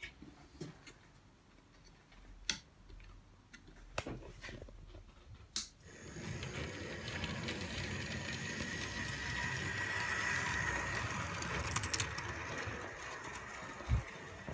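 DC-powered model steam tank locomotive running with its wagons: the small electric motor and gears whirr and the wheels rumble on the rails, starting about six seconds in and getting louder for a few seconds before easing slightly. A few light clicks come before it, and a single thump near the end.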